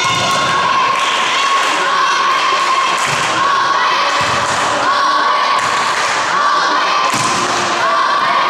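Volleyball thuds echoing in a sports hall: the ball bounced on the court floor and struck by players' hands and forearms during a rally. A steady high tone sits underneath.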